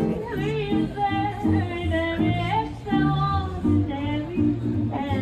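Live small jazz band playing: a woman sings a melody into a microphone over an upright bass line and guitar chords.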